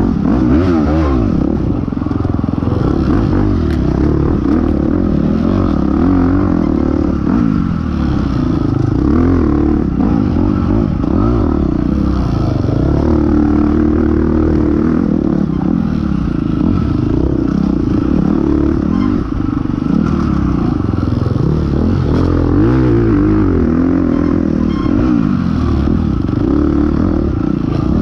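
Dirt bike engine ridden hard off-road, its pitch constantly rising and falling as the rider works the throttle and gears.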